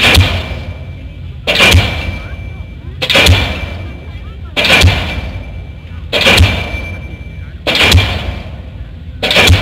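Diesel pile hammer driving a concrete pile, one heavy blow about every one and a half seconds, each with a brief metallic ring and a decaying tail. The pile has reached hard ground.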